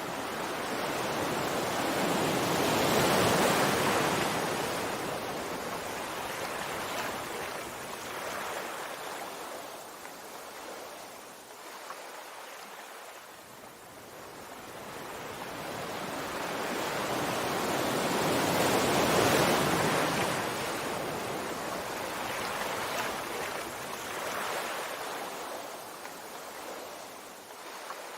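Sea waves washing onto a shore: a rushing hiss that swells and dies away. Two big waves come in, one a few seconds in and one about two-thirds of the way through, with smaller surges between them.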